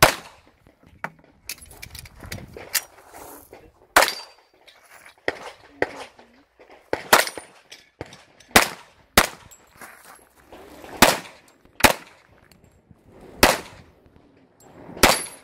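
A string of about ten pistol shots, irregularly spaced from about half a second to two seconds apart. Each is a sharp crack with a short echo.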